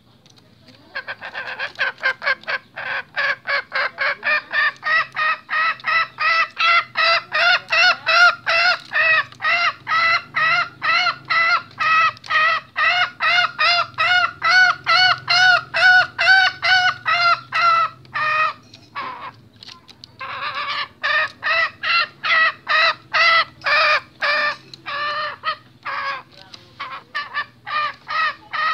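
Male junglefowl's agitated call: a fast, even run of short pitched calls, about three a second, that breaks off for a couple of seconds about two-thirds of the way in and then resumes.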